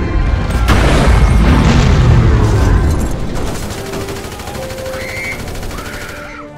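A heavy explosion about a second in, its deep rumble dying away over the next two seconds, followed by quieter mixed battle noise.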